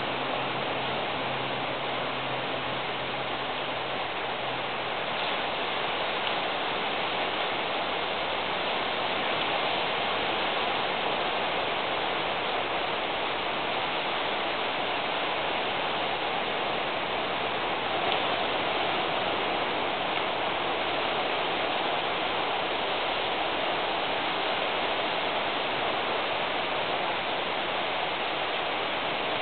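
Steady rain: a continuous, even hiss that does not let up. A low steady hum sits under it for the first few seconds, then stops.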